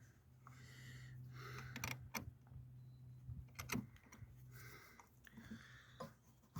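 Faint clicks and clinks of hand tools and metal parts being worked on a car battery terminal clamp, a few sharp ones about two seconds in and near four seconds, over a low steady hum.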